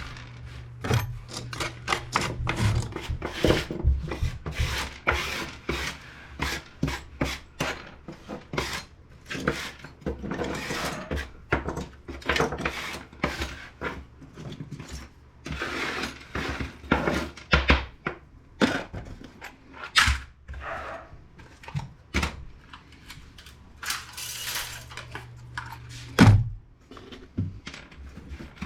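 Plastic and small metal parts of an inkjet printer clicking, clattering and scraping as it is pulled apart by hand, in a rapid, irregular string of small knocks, with a heavier knock near the end.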